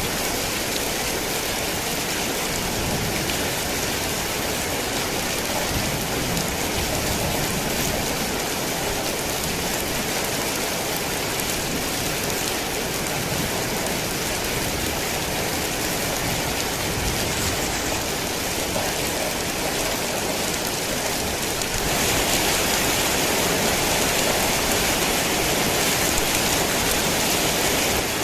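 Heavy rain falling steadily, a dense even hiss of drops. About three quarters of the way through it turns louder and brighter.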